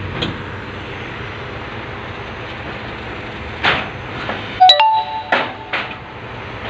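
Car carrier truck running steadily, with a few sharp metal knocks; the loudest, about two-thirds of the way in, rings briefly like struck steel.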